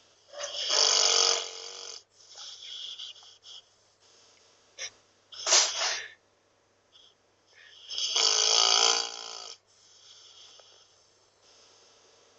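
Dog snoring: three loud snores a few seconds apart with softer breaths between them, then only quiet breathing near the end.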